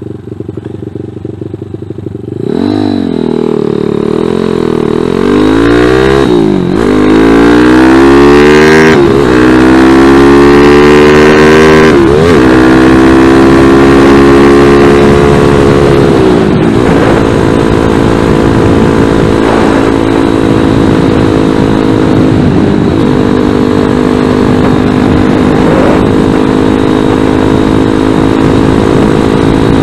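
Zongshen ZS190 single-cylinder engine on a Grom-style motorcycle idling low, its idle set a little down. About two seconds in it pulls away, revving up through the gears with several upshifts a few seconds apart, then settles into a steady cruise.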